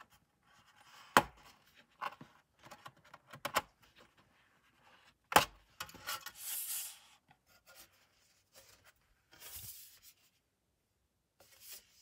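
Aluminium bottom case of a MacBook Pro being pried up and lifted off by hand. Two sharp clicks as the case comes free, about a second in and again about five seconds in, with lighter taps and rubbing or sliding of metal in between.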